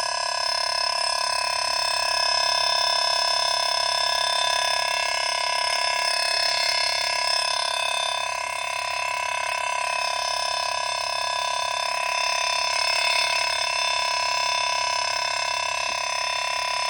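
Steady night chorus of insects and frogs: many high buzzing and trilling tones held without a break.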